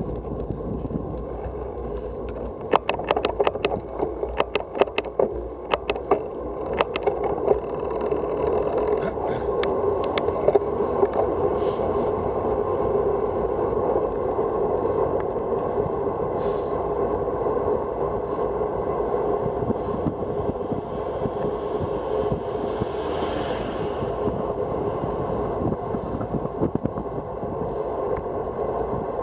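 Steady rush of wind on the microphone and tyre noise from a road bicycle descending at speed, with irregular sharp clicks and knocks during the first ten seconds or so.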